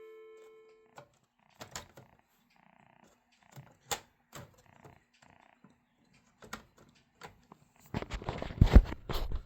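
An alarm sounder's steady buzzing tone dies away within the first second after the alarm is turned off. Scattered small clicks follow, and near the end comes loud, close clatter and crackle of equipment being handled.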